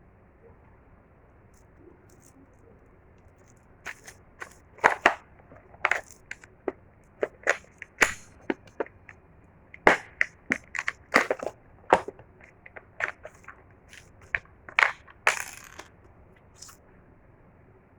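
Packaging being handled and crushed: a run of irregular sharp crackles and crunches starting about four seconds in and stopping about two seconds before the end.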